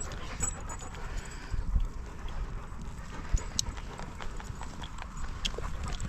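Footsteps and dogs moving about close by, with some panting and scattered light clicks and knocks.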